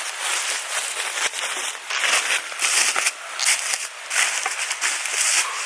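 Footsteps crunching and crackling through dry leaf litter, in uneven steps about every half second.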